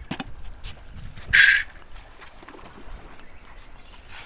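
Fishing reel being cranked against a hooked fish on a bent rod, with scattered light clicks. A short, loud hiss comes about a second and a half in.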